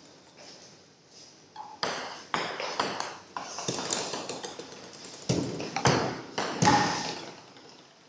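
Table tennis ball clicking as it bounces on the table and is struck by a paddle: a quick, uneven run of sharp ticks that starts about two seconds in and stops shortly before the end.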